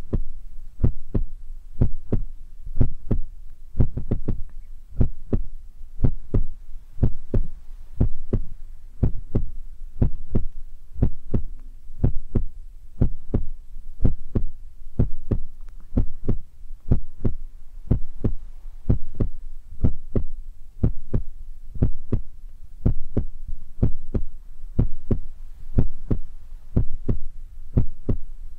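Fingers tapping and flicking on the ears of a dummy-ear ASMR microphone to imitate a heartbeat: a steady rhythm of low, muffled thumps, roughly two a second and grouped in pairs.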